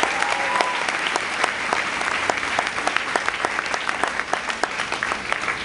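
Congregation applauding: many people clapping in a dense, steady patter that eases slightly toward the end.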